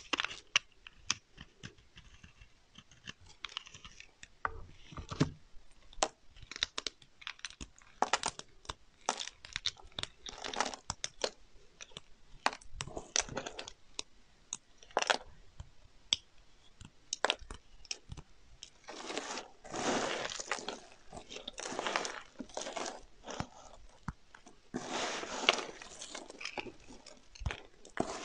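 A bar of soap being shaved with a blade and its shavings crumbled between the fingers. It gives a run of crisp crackles and snaps, with denser crunching about two-thirds of the way through and again near the end as the pile of shavings is squeezed.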